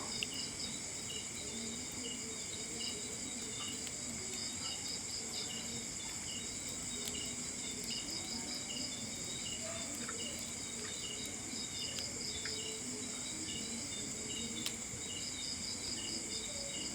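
A steady chorus of insects chirping: a high continuous buzz, a rapidly pulsing trill, and short chirps repeating over and over, with a few faint clicks.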